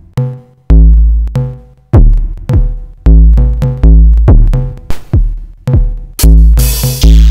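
Drum-machine beat played by the Korg iElectribe app: deep kick drums about once a second, with short pitched synth notes and light clicks between them. A bright, noisy hit sounds near the end.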